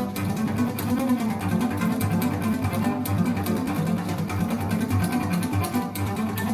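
Recorded music with low strings and a strong bass line, played over TriArt Hartley hi-fi loudspeakers in a demo room.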